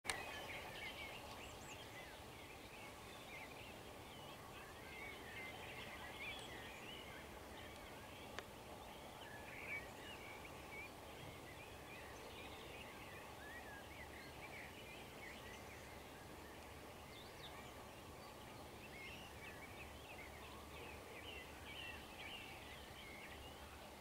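Faint dawn chorus of birds singing, many overlapping chirps and trills, over a steady background chorus of frogs croaking. A single sharp click comes about eight seconds in.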